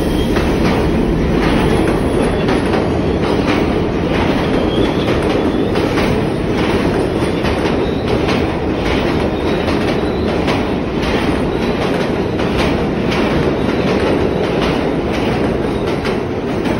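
New York City subway train passing through a station: a loud, steady rumble of wheels on rail with a regular clickety-clack of wheels crossing rail joints.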